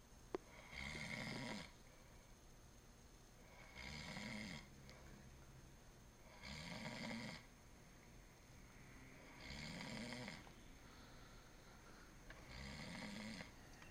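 A sleeping person snoring in a slow, regular rhythm: five snores about three seconds apart, each a little under a second long. There is a brief click just after the start.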